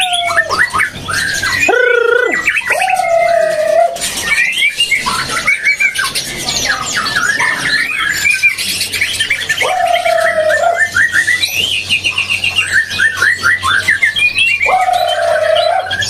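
Many caged songbirds calling and singing at once: a dense tangle of chirps, whistles and trills. A lower drawn-out call comes three times and a rapid trill about three-quarters of the way through.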